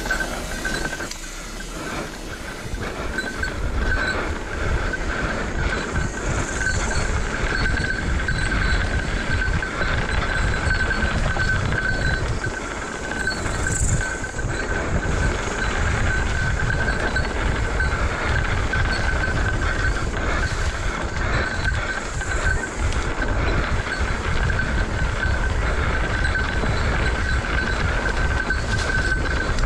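Mountain bike rolling fast down a dirt trail: a dense, rattling rumble of tyres and bike shaking over the rough ground, with a steady high whine over it.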